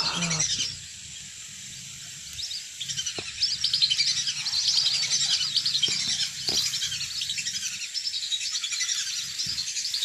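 A flock of whistling ducks (belibis) calling, with many shrill, overlapping whistled chirps. The calling grows louder and denser from about three seconds in.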